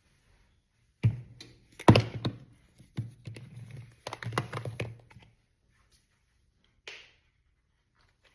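Seasoning containers being handled and set down on a kitchen counter: a cluster of knocks and taps, the sharpest about two seconds in, then a single tap near the end.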